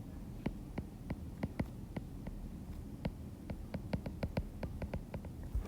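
Typing on a computer keyboard: a run of sharp, irregular keystroke clicks, about three or four a second.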